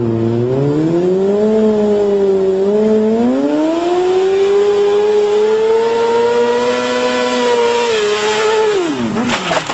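Sport motorcycle engine revved and held at high revs through a burnout, its pitch climbing about three seconds in, with the hiss of the spinning rear tyre growing underneath. Near the end the revs fall away sharply, followed by a brief clatter.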